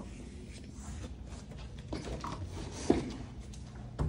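Steady low hum of indoor room tone, broken by a few soft knocks and thumps. The sharpest comes nearly three seconds in, and another near the end.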